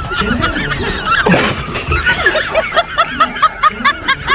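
High-pitched, sped-up giggling laughter used as a sound effect: a run of short rising-and-falling notes, about four a second, clearest in the second half. A short sharp noise cuts in about a second in.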